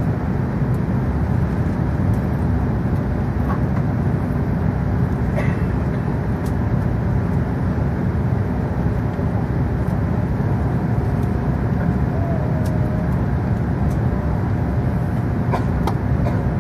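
Steady low rumble inside an Airbus A380 cabin as it taxis: engine and rolling noise heard through the fuselage, with a few faint clicks.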